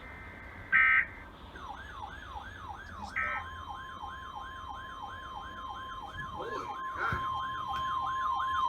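Two short electronic beeps, then an alert siren wailing up and down about three times a second, joined about three seconds in by the steady 1050 Hz NOAA Weather Radio warning alarm tone, which marks the start of a weekly alarm test.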